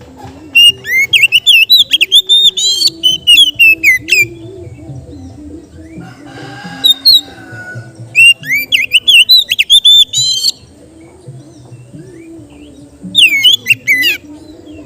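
Oriental magpie-robin (kacer) singing in three loud runs of rapid, varied whistles and trills, with pauses of a few seconds between them.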